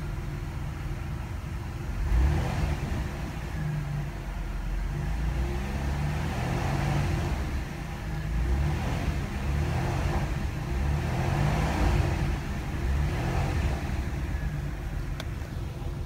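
1995 Pontiac Firebird's 3.4-litre V6 running warm and being revved several times, the engine note rising and falling.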